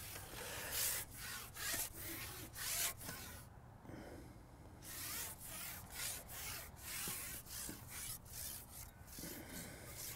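A carbon fishing pole being slid back through the angler's hands, a string of faint rubbing and rustling strokes, roughly one or two a second.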